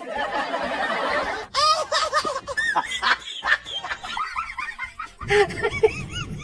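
Snickering laughter: a run of short chuckles rising and falling in pitch, after a rushing noise in the first second and a half.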